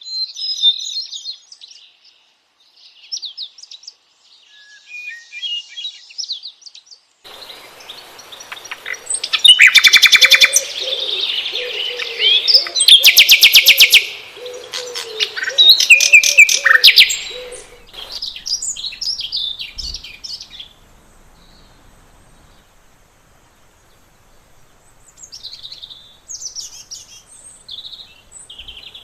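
Songbirds chirping and singing, several calls overlapping. Two loud, very rapid trills come about ten and thirteen seconds in; the calls thin out to a few quieter chirps near the end.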